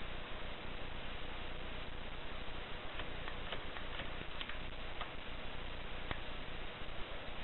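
Mercedes portable typewriter giving a few scattered single clicks, roughly one every half second to a second, over a steady hiss and low hum.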